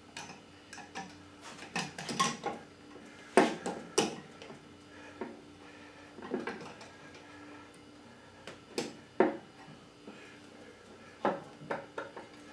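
Scattered metal clicks and clanks from a Harley-Davidson HoldFast sissy bar upright being worked onto its docking hardware on the motorcycle. They come in short clusters, and the loudest knocks fall about three and a half and four seconds in.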